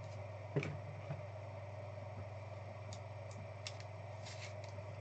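Steady low room hum with one sharp click about half a second in and a few faint light ticks later on.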